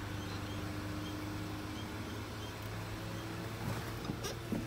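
Audi A3 convertible's power soft-top mechanism running steadily as the roof closes, a motor hum, with a few clicks near the end.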